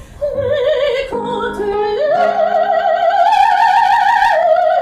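Operatic soprano singing with wide vibrato over piano accompaniment, climbing about two seconds in to a long high held note that lasts until just before the end.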